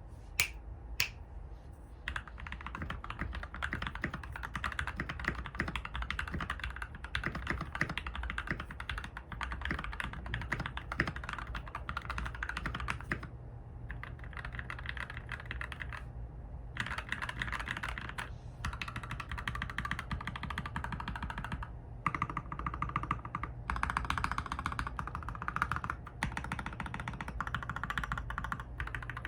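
Modded RK61 mechanical keyboard with milky yellow linear switches being typed on fast in a typing test: a dense, continuous run of keystroke clacks. Two sharp single clicks sound first, and the typing stops briefly a couple of times.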